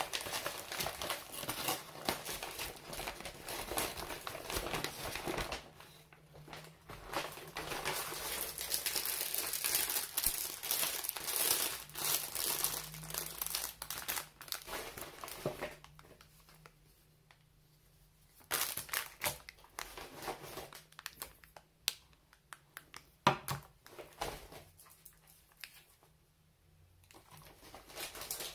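Paper bag and plastic food packaging crinkling and rustling while groceries are taken out, dense for the first half. It then turns quieter, with scattered sharp knocks as items are set down on the counter.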